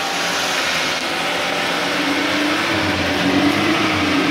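Lada Niva being winched out of deep mud by its own front-bumper electric winch, the winch motor and engine running under load as one steady drone that wavers slightly in pitch and grows heavier about three seconds in.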